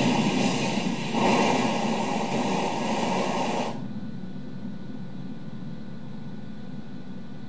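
Film soundtrack playing: a loud, even noise spread across the whole range, which cuts off suddenly nearly four seconds in, leaving a faint steady hiss.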